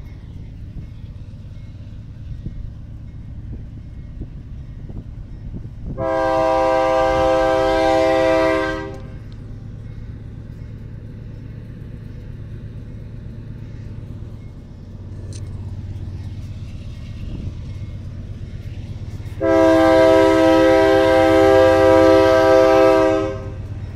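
Approaching freight diesel locomotive sounding its air horn in two long blasts, each a chord of several notes: the first about three seconds long, the second about four seconds long near the end. Beneath them runs the low, steady rumble of the locomotive, which grows louder in the second half as it comes closer.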